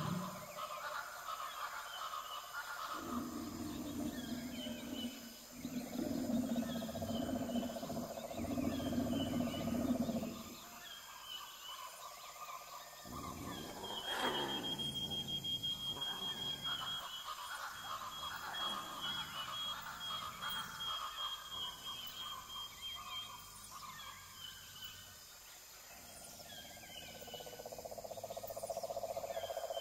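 Wild animal and bird calls on a nature-documentary soundtrack: short repeated high chirps, with a long, high, steady tone for several seconds starting midway.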